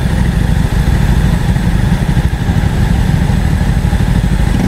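Motorcycle engine idling steadily, with a fast low throb.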